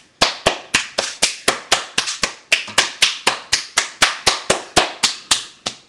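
One person clapping hands in a quick, steady rhythm, about four claps a second, stopping just before the end.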